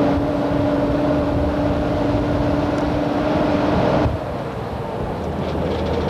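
Motor vehicle running and driving over rough ground, heard from on board: a loud rumbling ride noise with a steady engine drone that cuts out about four seconds in, after which the rumble goes on a little quieter.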